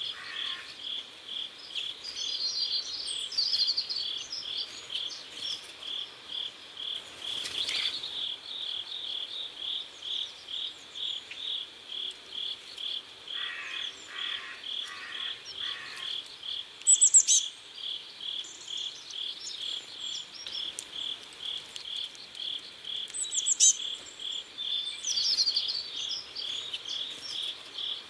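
Crickets chirping in a steady, even rhythm of about two pulses a second, with short bird chirps breaking in a few times.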